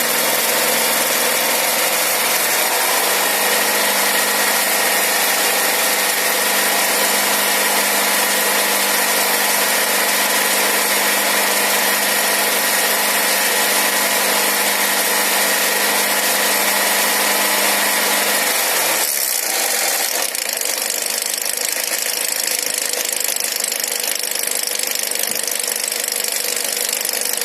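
Nissan X-Trail's MR20 2.0-litre four-cylinder petrol engine running with a knock in it. About 19 seconds in its steady note drops and changes.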